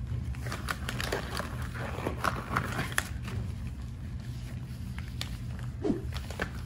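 Blue nitrile gloves being handled and pulled on: rubber rustling and stretching, with scattered small clicks and snaps, over a steady low hum.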